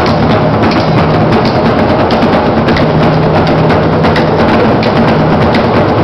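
Loud, fast drumming with sharp wooden knocks, beaten in a continuous rhythm by a group of players.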